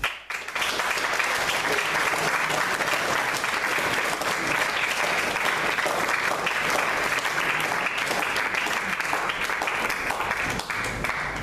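Audience applauding: a steady patter of many hands clapping that starts about half a second in and thins out near the end.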